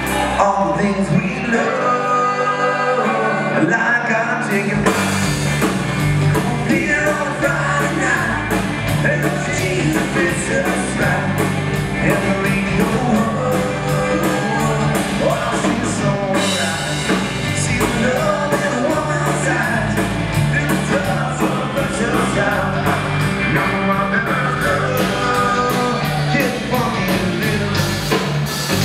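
Live country-rock band playing with electric guitars, bass and drum kit. The drums and cymbals come in fully about five seconds in, and the low end drops out briefly a little past the middle before the full band picks up again.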